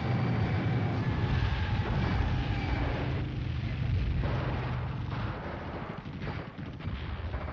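War-film sound effects of artillery and gunfire: a heavy continuous rumble of guns for the first five seconds or so, then a quick run of sharp shot cracks near the end.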